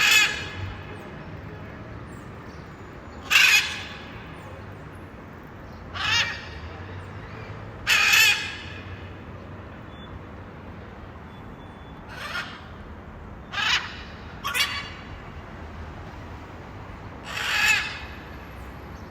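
Blue-and-yellow macaws giving about eight harsh squawking calls, each under a second, spaced irregularly a few seconds apart over a steady background hiss.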